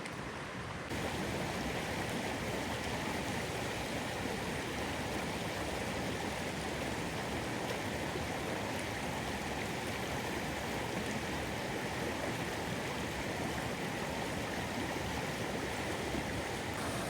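Steady rushing of a mountain stream pouring over a small waterfall. The sound gets louder about a second in.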